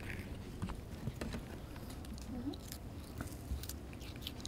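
Baby vervet monkeys biting and chewing pieces of chopped fruit, with irregular crisp crunching clicks.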